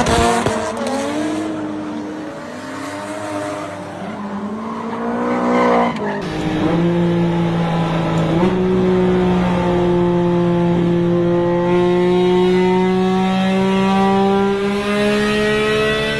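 For the first six seconds a drifting car's engine revs up and down while its tyres squeal. Then, heard from inside the cabin, a Porsche engine pulls at full throttle, its pitch jumping up about eight seconds in and then climbing slowly toward the 9,000 rpm redline in fourth gear.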